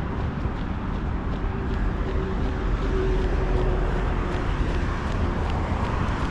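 Steady road traffic noise with a low rumble, a faint hum rising in the middle and fading again, and faint regular footsteps on stone paving.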